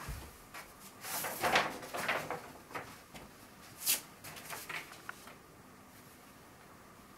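Paper and a stencil being handled: a stencil lifted off a freshly painted sheet and sheets of decorative paper rustling and crinkling, with a short sharp rustle about four seconds in. It goes quiet for the last couple of seconds.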